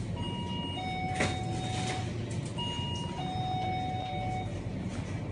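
Electronic ding-dong door chime, a high note then a longer lower note, sounding twice over a steady low hum. A single sharp click about a second in.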